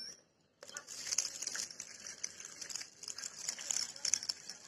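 Water pouring from a plastic watering can onto water spinach cuttings standing in a bucket of water, splashing with a steady hiss that starts about half a second in.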